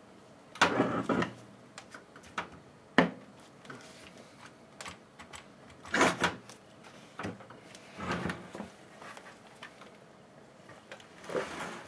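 Plastic housing and throttle-linkage parts of a hedge trimmer being handled and pushed together: a few scattered clicks and knocks with quiet stretches between them.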